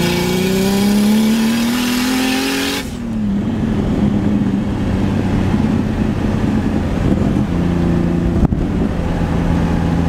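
Turbocharged BMW E30's M50 straight-six accelerating hard from inside the cabin, its pitch rising with a loud rush of noise that cuts off suddenly about three seconds in as the throttle is lifted. The engine then runs at a steadier, lower pitch, with one sharp knock near the end.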